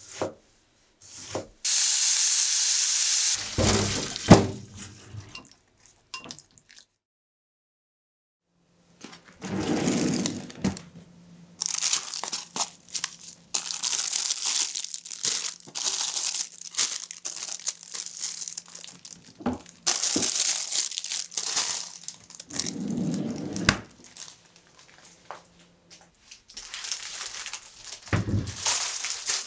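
Kitchen handling sounds. First a knife taps through a tomato onto a wooden cutting board. Then plastic produce bags crinkle and rustle in repeated stretches as vegetables are taken out and set down, with a low steady hum under much of the middle part.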